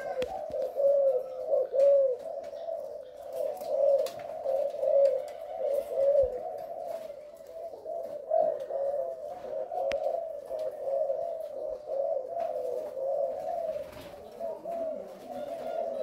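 A chorus of caged spotted doves cooing, many birds' calls overlapping continuously.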